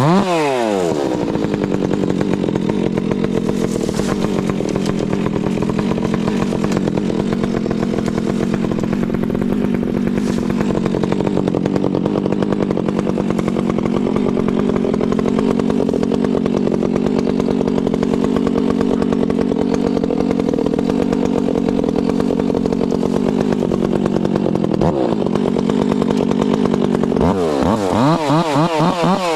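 Two-stroke chainsaw held at full throttle, its pitch steady as it cuts through wood for most of the stretch. Near the end the engine drops briefly, then the throttle is blipped up and down several times.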